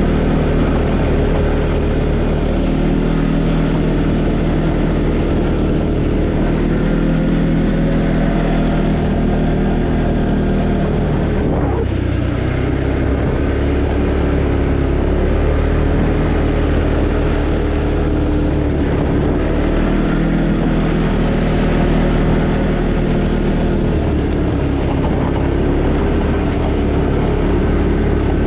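Arctic Cat Alterra 700 ATV's single-cylinder four-stroke engine running under way, its pitch rising and falling with the throttle, with a brief change about twelve seconds in.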